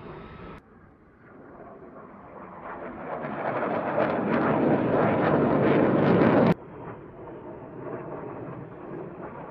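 Jet aircraft engine noise, faint at first, growing steadily louder over several seconds to a loud rushing sound as the jet passes close. It cuts off suddenly about six and a half seconds in, and fainter jet noise follows.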